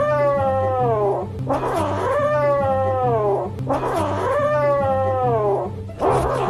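Grey kitten yowling in long drawn-out cries, three in a row, each falling in pitch, with a fourth starting near the end. Background music with low bass notes underneath.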